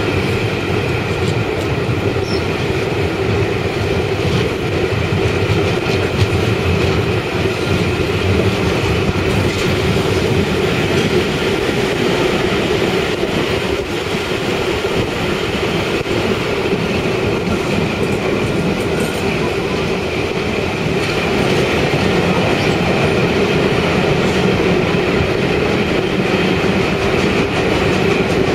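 Passenger train running along the track: a steady rail rumble with a few faint held tones, keeping an even level throughout.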